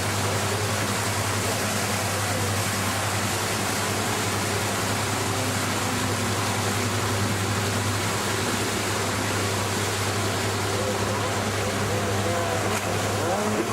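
Jet ski engine running steadily under a constant wash of water and wind noise, with a low steady hum.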